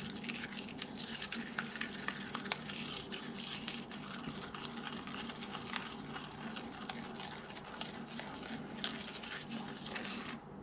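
Plastic measuring spoon stirring buttermilk and baking soda in a small glass bowl, with many light clicks of the spoon against the glass over a steady crackly fizz as the soda reacts with the buttermilk and turns it bubbly.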